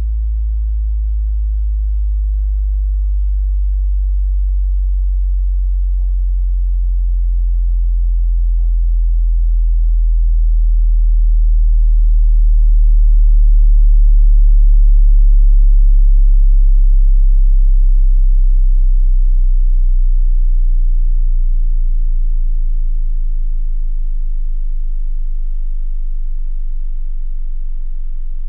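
Very deep bass test tone, a steady sine, played through a portable smart speaker with faint overtones above it. It swells louder toward the middle and eases off again near the end.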